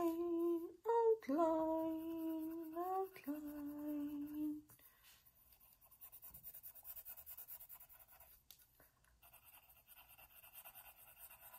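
A voice humming three long held notes, the middle one rising at its end. Then, from about four and a half seconds in, the faint scratch of a colored pencil drawing on paper.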